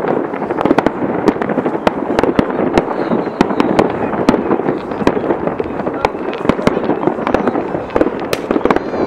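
Fireworks display: aerial shells bursting in a rapid, irregular run of sharp bangs and crackles, several a second, over a continuous dense noise.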